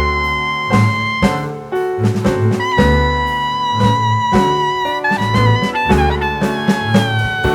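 Background music: a jazzy tune with held saxophone-like lead notes over a steady drum beat.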